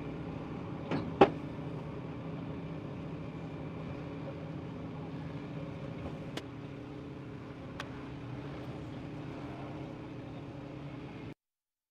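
Heavy machinery engine running steadily, with two sharp knocks about a second in and a couple of faint clicks later; the sound cuts off abruptly near the end.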